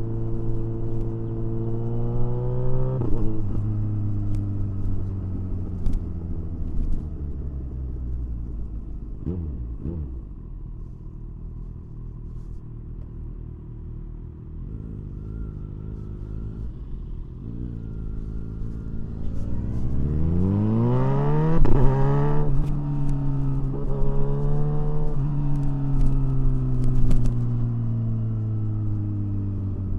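Kawasaki Ninja 1000SX inline-four engine running under way, revs rising and falling. There is a quieter low-revs stretch in the middle, then a hard acceleration about two-thirds through that climbs steeply and breaks off in a sudden drop in revs. After that the revs ease off towards the end.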